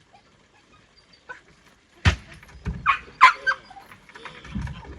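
A dog barking in a few short, sharp barks about two seconds in, mixed with a knock or two.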